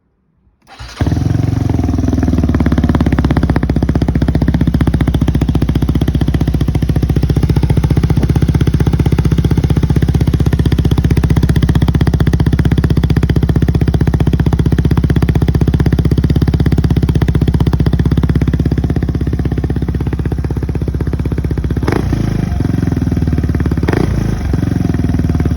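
Yamaha Cygnus X scooter's single-cylinder four-stroke engine, breathing through an aftermarket TSUKIGI silencer, starts about a second in and then idles steadily. Its note changes briefly twice near the end.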